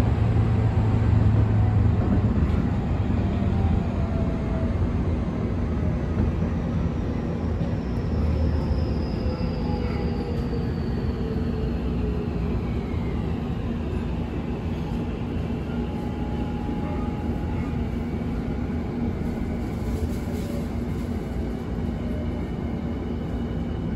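Tokyu 5000 series electric train heard from inside the car: steady running noise and rumble of the wheels on the rails, with the traction motor and inverter whine gliding down in pitch as the train slows.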